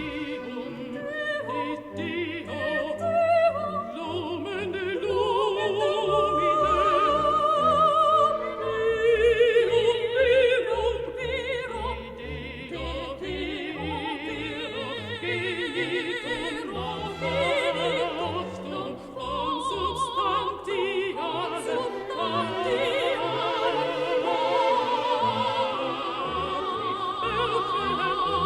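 Background music: an operatic voice singing with vibrato over an orchestral accompaniment.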